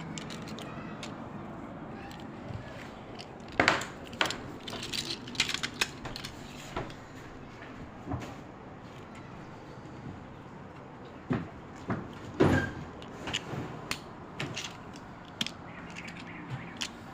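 Boiled clams being eaten by hand: irregular clicks and knocks of the shells being handled and opened, louder around four seconds in and again around twelve seconds in.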